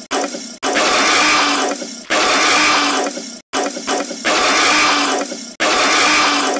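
Cartoon dinosaur roar sound effects, the same hissing roar clip replayed over and over in bursts of about a second to a second and a half that cut in and out abruptly.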